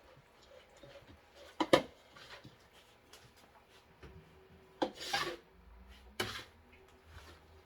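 A few short, sharp scraping sounds with quiet pauses between, from a pike being cleaned.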